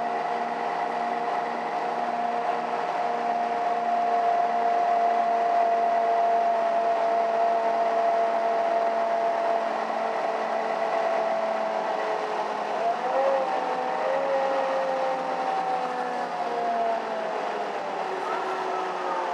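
Interior running sound of a Mercedes-Benz O530 Citaro city bus under way: engine and drivetrain noise with a steady whine that slowly falls in pitch, steps up about 13 seconds in, then falls again near the end.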